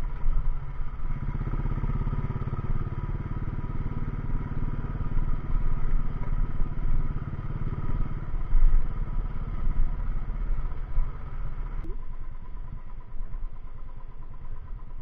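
Motorcycle engine running steadily as the bike is ridden along a rough road, with a heavy low rumble at the microphone. The sound changes abruptly about twelve seconds in.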